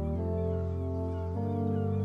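Background music: slow, held chords over a deep bass note, the chord changing twice.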